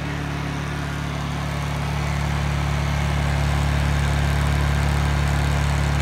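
Honda EU2000i inverter generator's single-cylinder four-stroke engine running steadily at high speed with eco mode switched off. Its drone gets a little louder over the first couple of seconds, then holds level.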